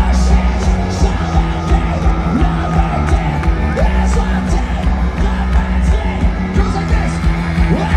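A rock band playing live at full volume, with distorted electric guitars, bass and drums. Voices yelling over the music, heard from within the crowd.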